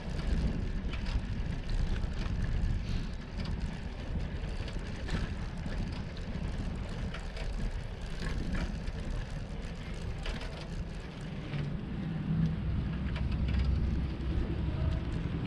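A bicycle rolling over brick paving, heard from a camera mounted on its handlebars: a steady low rumble of wind and tyres, with many small rattling clicks from the bike and its mount.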